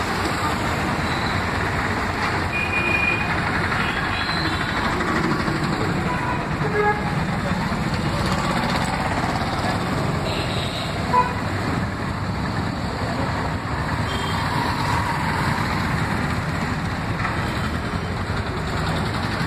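Steady street traffic: motorcycle and auto-rickshaw engines and passing vehicles, with a few short horn toots.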